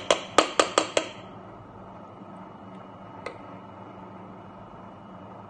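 A quick run of about five light, ringing clinks in the first second, like cutlery tapping against a dish, then one fainter tick a couple of seconds later over a steady low room hum.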